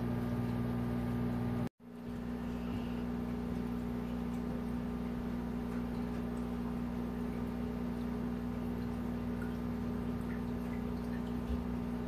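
Steady hum of aquarium equipment with water trickling through an egg tumbler. It cuts out for a moment about two seconds in, then carries on unchanged.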